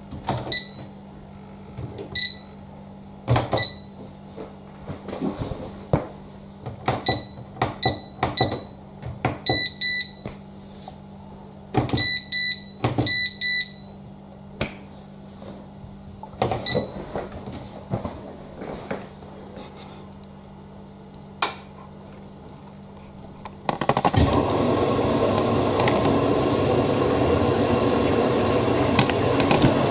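Beko WDC7523002W washer-dryer control panel beeping as its buttons are pressed: a run of short high beeps with clicks, some in quick pairs and triples, over roughly the first fourteen seconds. About 24 seconds in, a steady rush of water starts as the machine begins filling for the main wash.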